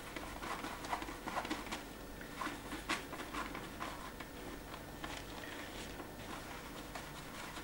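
Cloth rubbing over the back of an inked etching plate to clean it: a run of short, irregular wiping strokes.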